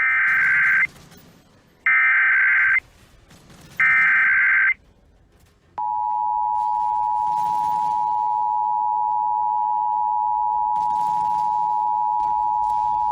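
Emergency Alert System tones: three short bursts of SAME header data, about a second each and two seconds apart. About six seconds in, the two-tone EAS attention signal (853 and 960 Hz) starts and holds steadily. Together they announce an emergency alert message, here a required monthly test.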